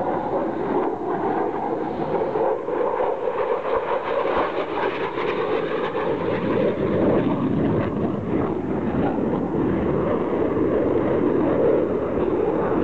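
F-16 fighter jet flying past, its single turbofan engine making a continuous rumbling rush. Over the first half a faint tone in the noise slides slowly down in pitch, and the sound grows louder toward the end.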